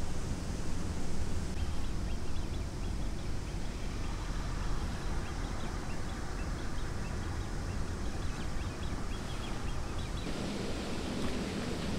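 Open-air ambience dominated by a steady low rumble of wind on the microphone, with faint scattered high ticks over most of it; the noise gets fuller and brighter about ten seconds in.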